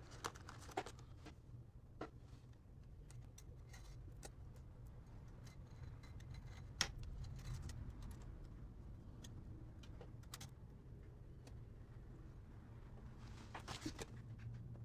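Scattered light clicks and taps of hand tools and small parts being handled while a Gilera Smash 110 motorcycle cylinder head is assembled, with one sharper click about seven seconds in and a quick run of clicks near the end, over a low steady hum.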